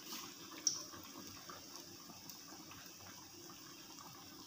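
Besan-battered bread samosa deep-frying in hot oil in a pan: a faint, steady sizzle full of small crackles, with one sharp tick a little under a second in.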